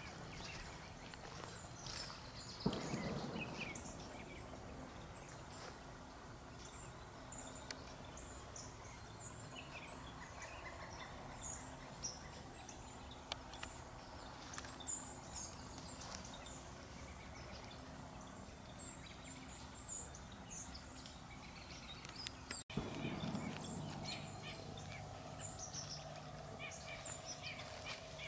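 Small birds chirping and calling, many short high calls scattered throughout, over a faint steady low hum. A brief louder rustle or knock comes about three seconds in.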